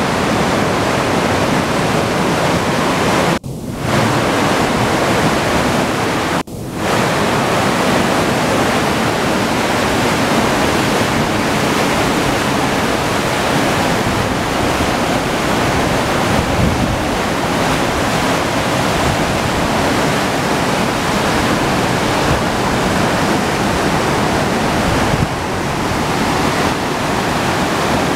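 River rapids running high, white water churning over rocks in a steady loud rush. The sound drops out briefly twice a few seconds in.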